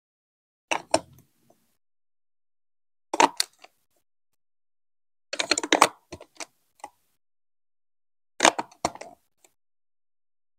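Hard plastic building blocks and marble-run track pieces clicking and knocking as they are set and pressed onto a studded baseplate. The clicks come in four short bursts a couple of seconds apart, the third a quick run of several clicks.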